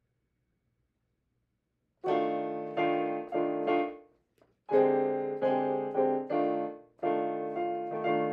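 Digital piano keyboard playing a slow run of repeated chords, one about every three-quarters of a second, starting about two seconds in after near silence, with a short break midway.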